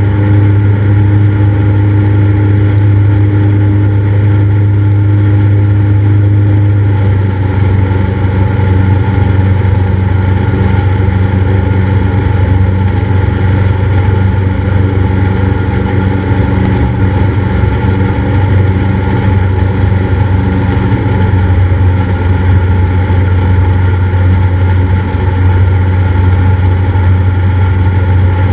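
Cessna 172's piston engine and propeller droning steadily, with a strong low hum. The tone shifts slightly about seven seconds in.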